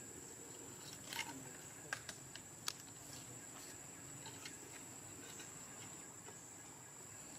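Quiet background with a steady high-pitched whine, broken by a few short sharp clicks or taps and a brief squeak between about one and three seconds in.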